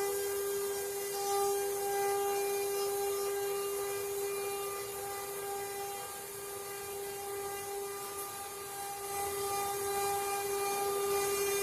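CNC wood-carving router's spindle running with a steady high whine and a hiss, as it carves wood.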